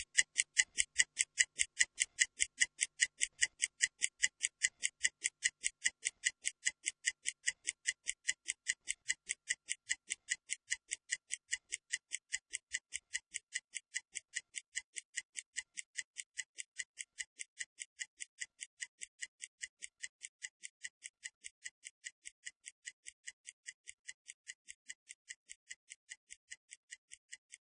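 Stopwatch ticking sound effect, an even run of crisp ticks at about four a second that slowly fades, timing a 30-second rest period.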